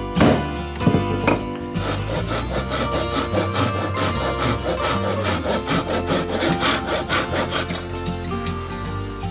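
Hand saw cutting wood in quick, even strokes for several seconds, after a few knocks at the start, with background music underneath.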